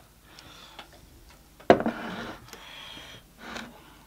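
Close-up eating sounds: light clicks, then a sharp crunch about a second and a half in followed by a stretch of chewing, and a shorter burst of it near the end.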